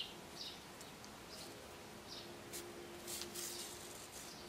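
Black paper yarn rasping as it is drawn through crocheted paper-yarn stitches with a needle: a few faint short squeaks in the first two seconds, then a longer scratchy pull a little past the middle.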